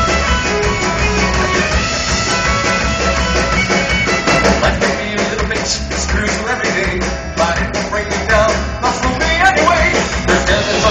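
A live folk-rock band playing with fiddle, guitars, keyboard and drums, and a man singing into a microphone over the second half.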